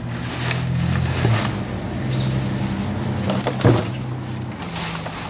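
A steady engine hum underneath the scrape and knock of a shovel working wet yard debris, with one sharp knock a little over three and a half seconds in.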